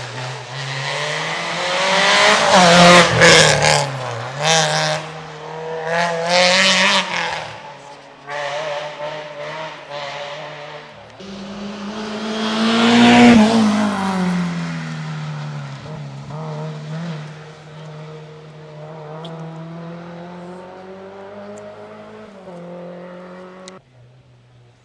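Rally cars passing at speed, one after another, engines revving hard with the pitch jumping at each gear change. The first grows loud within a few seconds and falls away. The second grows loud about thirteen seconds in, then fades to a steady engine note.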